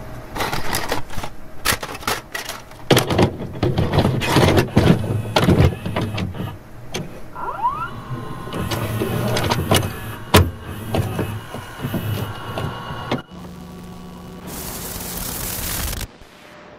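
Close handling noises: a run of sharp clicks, knocks and scrapes over a low hum, with a brief rising squeak about eight seconds in. Near the end the knocking stops, leaving a steady hum and then a loud even hiss that cuts off suddenly.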